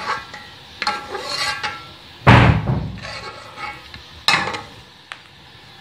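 Metal slotted skimmer knocking and scraping against an aluminium cooking pot: a few clanks, the loudest a heavy knock about two seconds in, with lighter scraping between.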